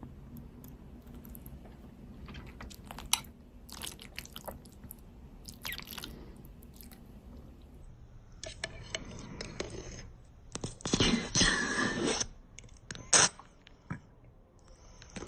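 Guinea pig chewing and crunching food: scattered single crunches at first, then a denser, louder run of crunching in the second half, with one sharp crunch near the end.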